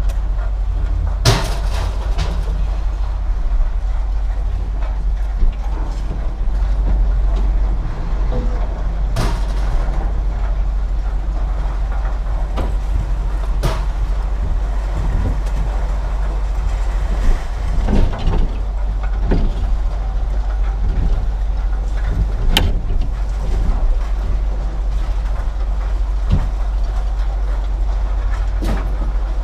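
Steady low rumble with scattered knocks and metallic clatters of scrap being unloaded from a truck.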